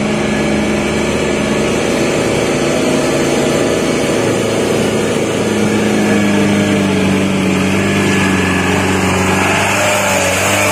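Mitsubishi Fuso Canter light truck's diesel engine pulling steadily under load up a steep dirt grade. It grows louder and harsher near the end as the truck passes close.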